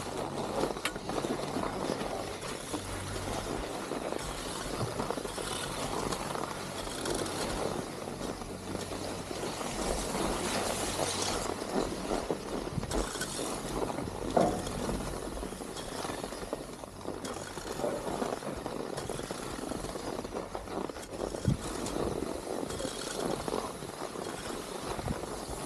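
Skis running and scraping over snow on a downhill run, with wind rushing over the microphone: a steady rushing noise with louder hissing scrapes now and then.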